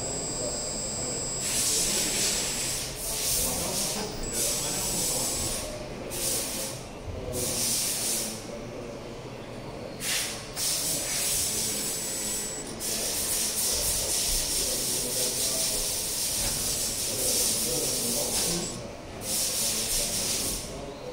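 Scale-model RC forklift's motors and lift mechanism running in repeated bursts of one to several seconds as it moves and sets a load down. The sound is a high hiss with a thin high whine, starting and stopping abruptly.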